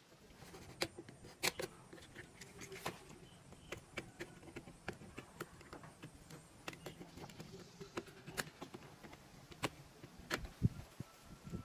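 Snap-off utility knife blade scraping and shaving hard plastic: faint, irregular scratches and clicks, with a sharper knock near the end.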